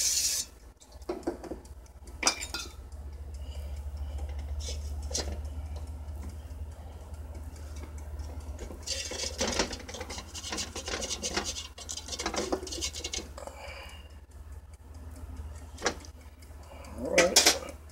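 Floured chicken wings being moved around in an air fryer basket: scattered light clinks and scrapes against the basket, over a low steady hum, with a brief louder sound near the end.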